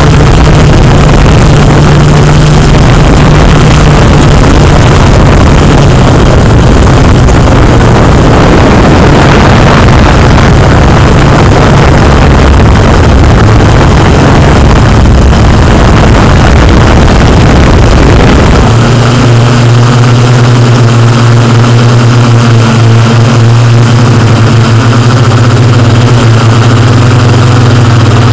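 Multirotor drone's propellers and motors humming steadily, very loud and close, with a rushing noise over the top. About two-thirds of the way through, the hum shifts a little lower and the deep rumble beneath it drops away.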